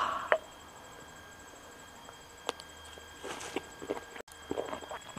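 A person chewing a mouthful of cooked trapezium horse conch meat, which is firm and crunchy: faint, scattered soft crunches and mouth clicks, a few of them coming close together near the end.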